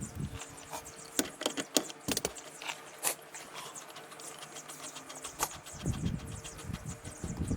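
Scattered sharp metallic clinks and taps from lug nuts and tools being handled on a tractor wheel hub. A low rumble comes in near the end.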